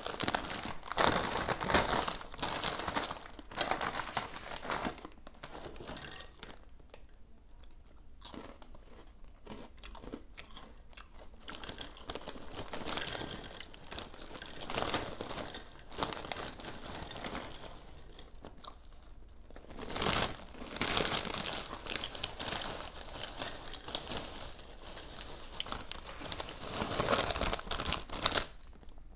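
Crinkly plastic snack bags of Takis and Flamin' Hot Cheetos being handled and shaken out, the crunchy chips rattling onto a plate, in several bursts.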